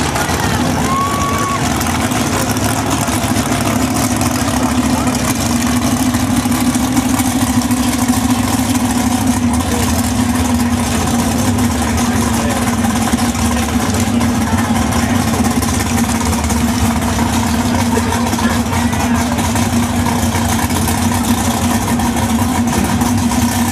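Two drag cars, a 1955 Chevy and a sedan, with their big engines idling loudly and steadily after their burnouts as they back up and stage at the start line.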